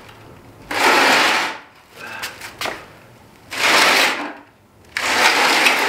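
Wooden pallet loaded with a heavy VR38DETT engine dragged in three short pulls across a concrete garage floor, each scrape lasting about a second, with a couple of light knocks between them.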